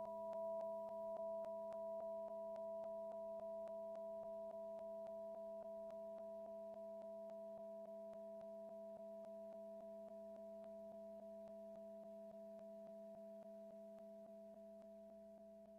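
Closing chord of a song, held on a few steady pure-sounding tones and slowly fading out, with faint even ticks about three times a second.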